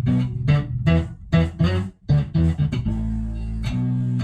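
Electric bass played through a stacked pedal chain: an MXR sub-octave bass fuzz on its octave setting, a Bass Clone chorus and a SansAmp Bass Driver with the drive turned up, giving a thick, fuzzy, 80s-synth-like bass tone. A quick run of plucked notes, then one note held from about three seconds in.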